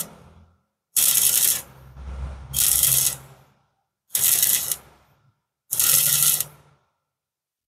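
Stick-welding arc crackling and hissing in four short bursts about a second and a half apart, each lasting well under a second, as the coated electrode is struck and pulled away again and again to lay the weld in separate dabs.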